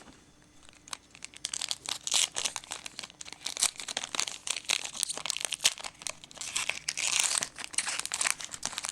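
Trading card pack wrapper being torn open and crinkled by hand: a quiet second, then dense crackling and rustling until near the end.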